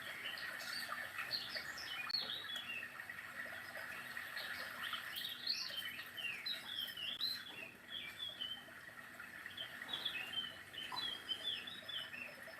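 Birdsong ringtone played by a Samsung GT-C6712 mobile phone: many quick chirps and twittering whistles, rising and falling, over a steady hiss.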